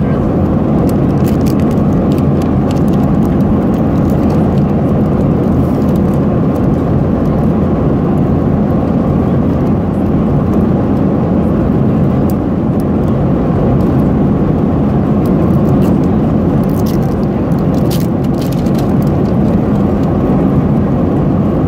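Airliner cabin noise: a steady low roar from the engines and airflow. Light crackles of plastic wrapping being handled come through on top, most of them a few seconds before the end.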